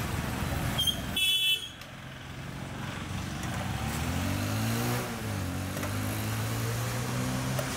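Street traffic: a short, high vehicle horn toot about a second in, then a motor vehicle engine running close by, revving up and back down around the middle before holding steady.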